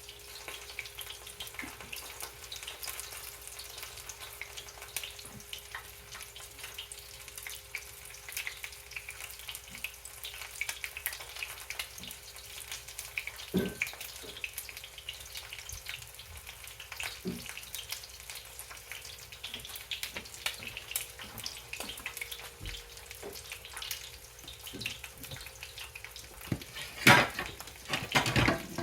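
Cornflake-breaded chicken wing drumettes deep-frying in hot oil: a steady sizzle with constant fine crackling pops. Two louder knocks come near the end.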